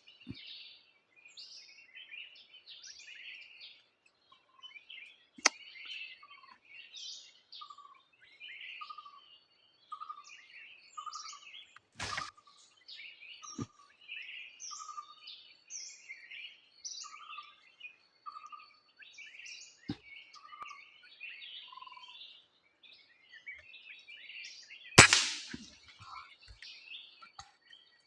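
Many small birds chirping and calling in the trees, with one bird repeating a short lower note a little more than once a second for much of the time. Two small sharp clicks come earlier, and about 25 seconds in there is a single loud sharp crack, the shot of a PCP air rifle.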